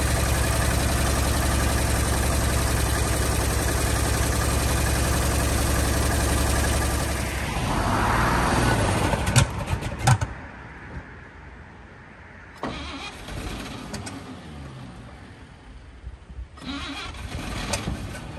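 Old GMC truck inline-six engine, just revived after sitting for over twenty years, running steadily and loudly for about seven seconds. The sound then changes, with two sharp knocks about ten seconds in, and drops off to something much quieter.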